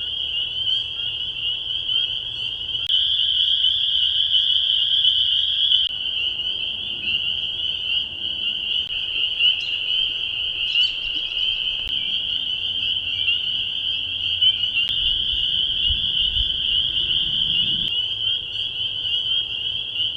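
Dense chorus of spring peepers, countless high peeps overlapping into a continuous shrill band, its strength stepping up or down abruptly a few times.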